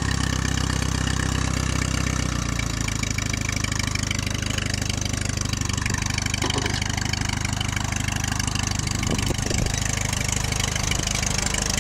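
1946 Case VAC tractor's four-cylinder engine running steadily as the tractor drives along; its note changes about three seconds in.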